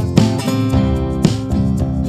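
Background music led by strummed guitar, with a steady beat.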